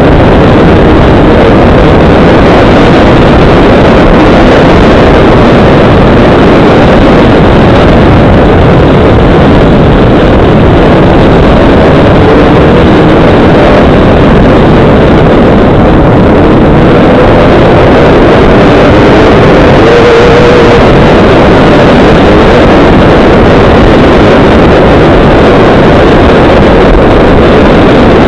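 Dirt bike engine running at speed on a trail, very loud and steady, mixed with a heavy rush of wind over the microphone.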